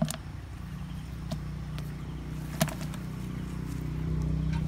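Steady low hum of a motor engine running somewhere off, growing slightly louder toward the end, with a few short sharp knocks over it.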